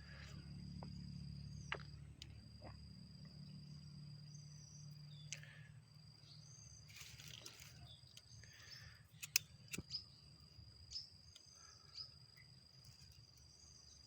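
Faint, steady high-pitched trilling of insects, broken off now and then, with a few short high chirps and scattered sharp clicks.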